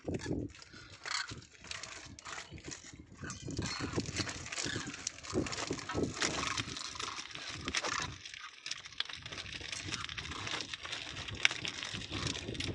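A large flock of cranes calling, with many short calls overlapping and no real pause.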